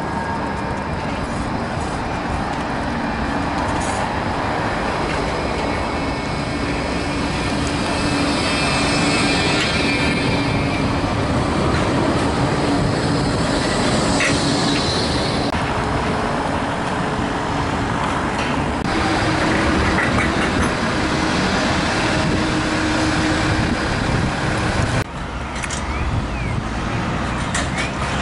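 Bombardier Flexity 2 tram running in on street track and passing close by, with a steady electric hum and a higher whine that is strongest as it goes past, over constant traffic noise. The noise changes abruptly about three seconds before the end.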